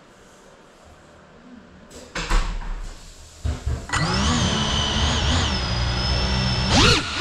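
CineLog35 FPV cinewhoop drone's motors spinning up: a couple of short rough bursts, then from about four seconds in a steady high whine of the props at idle, sweeping sharply up as the throttle comes up near the end for takeoff.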